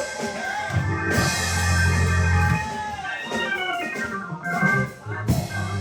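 Church organ, Hammond-style, playing sustained chords over strong bass notes that swell and drop away.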